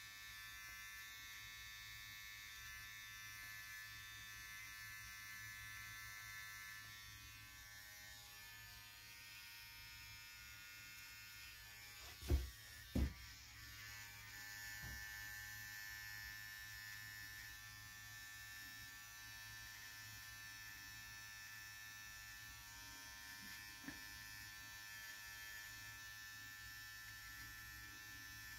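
Cordless hair trimmer running with a faint, steady buzz while edging the beard line and scalp. Two dull thumps come close together about twelve seconds in.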